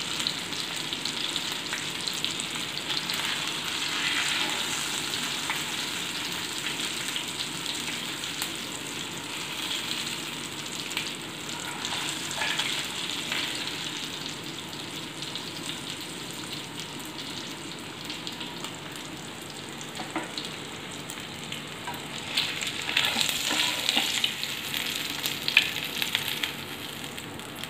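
Fish steaks shallow-frying in hot oil in a pan: a steady sizzle with crackling. A metal ladle scrapes and taps against the pan as the pieces are lifted out, with sharper clicks and taps in the last few seconds.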